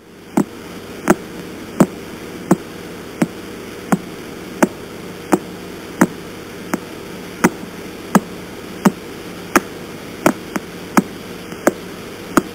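Radio-telescope recording of the pulsar PSR B0329+54 turned into sound: sharp regular pulses about 1.4 times a second, each one the star's beam sweeping past once per rotation, varying in strength over a steady radio static hiss.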